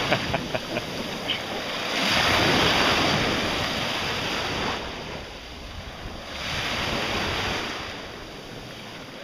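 Small sea waves washing in at the shoreline, swelling and ebbing twice, with a few sharp splashes in the first second or so; the sound fades toward the end.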